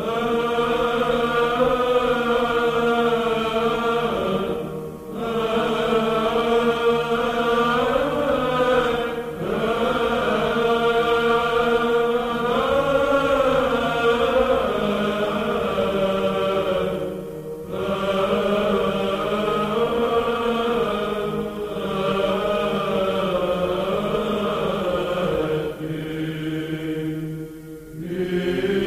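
Slow unaccompanied chant: long sung phrases that glide in pitch over a steady low held note, breaking off briefly every four to eight seconds.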